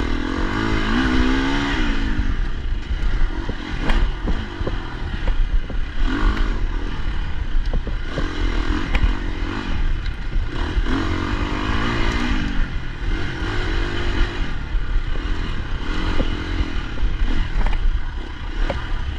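Off-road enduro motorcycle engine revving up and easing off again and again as it is ridden over a rough dirt trail, with the bike clattering and knocking over the bumps.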